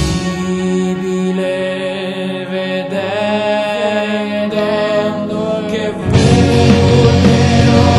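Studio-recorded rock music: a quieter stretch of sustained, held chords with the bass and drums dropped out, then the full band comes back in abruptly about six seconds in.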